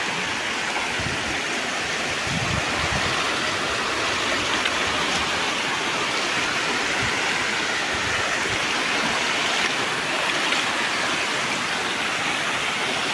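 Muddy floodwater rushing across a footpath between flooded fields: a steady, unbroken rush of water.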